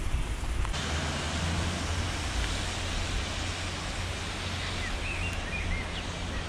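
Steady rain falling, a dense even hiss that grows fuller less than a second in, with wind rumbling on the microphone.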